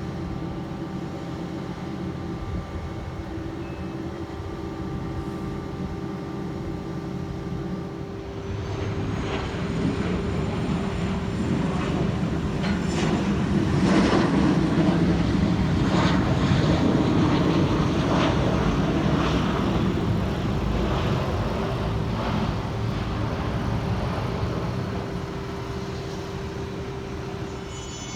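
Airplane engines growing louder as an aircraft approaches and passes, with a rising high whine. The sound peaks near the middle and fades slowly away. A steady low hum runs underneath throughout.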